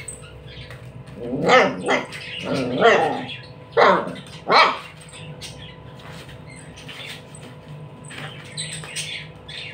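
Puppy barking in play at its ball: about five short barks in quick succession between one and five seconds in, then quiet.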